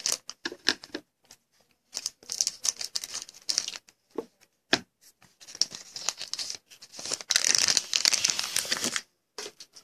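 A foil trading-card pack (Panini Contenders football) being crinkled and torn open by hand. The wrapper rustles in irregular bursts, with a few sharp ticks, and the longest, loudest crinkling comes near the end.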